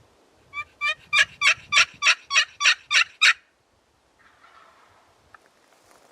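A series of about ten turkey yelps, evenly spaced about three a second and growing louder, then stopping about three seconds in. Faint rustling follows near the end.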